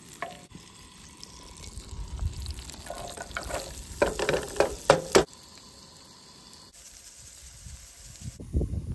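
Butter sizzling in a hot frying pan, then diced potatoes scraped off a plastic cutting board into the pan with a short clatter of knocks and sizzling about four to five seconds in. After that the frying goes on more quietly.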